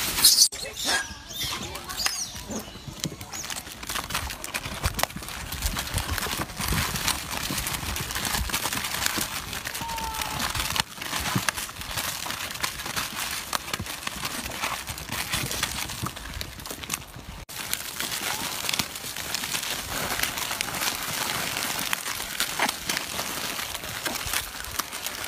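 Plastic snack packets crinkling and rustling as a group of monkeys handle and tear at them, over steady outdoor background noise.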